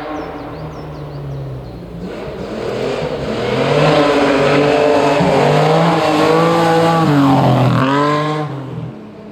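Rally car approaching and passing at speed, its engine revving hard with the pitch climbing and dropping in steps through quick gear changes. It is loudest in the middle. Near the end there is a last rise in revs, then the sound drops away.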